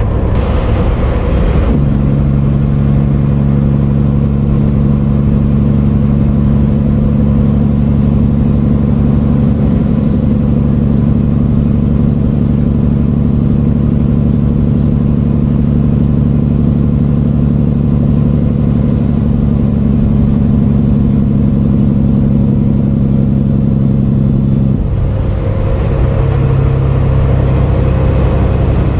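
Peterbilt 379's diesel engine drones steadily at highway cruise, heard from inside the cab with road rumble underneath. Near the end the engine's note changes.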